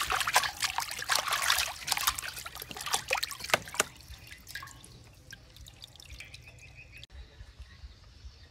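Water splashing and dripping in a steel basin as a whole fish is rubbed and washed by hand. The splashing is loud for about the first four seconds, then dies down to scattered drips.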